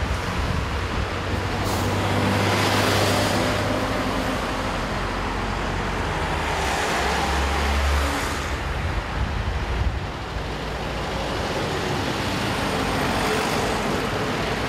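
Heavy truck diesel engines running, with road traffic noise. The sound swells twice, around two to four seconds in and again around seven to eight seconds in, as vehicles move past.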